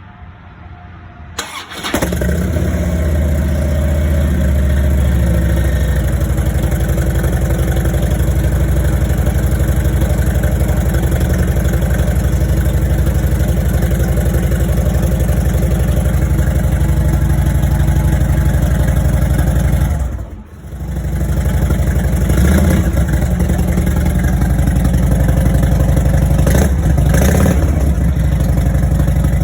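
Harley-Davidson Road Glide V-twin starting up and running through its old exhaust pipes, which the owner believes are not stock. It fires about two seconds in and settles into a steady, loud idle. The sound drops out briefly about two-thirds of the way through and picks up again, with a few short rises in the later part.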